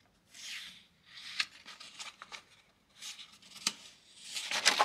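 Paper rubbing and rustling as a hand handles and turns a page of a spiral-bound sketchbook, in several short brushes with small clicks, the loudest near the end.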